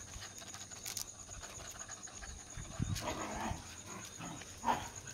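Cocker spaniels making short excited greeting noises: a couple of brief rough sounds about three seconds in and a sharper, louder one near the end.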